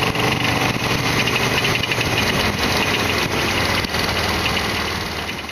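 Harley-Davidson Sportster XL1200R V-twin engine running steadily, with a fast ticking over it from about a second in; the sound fades out near the end.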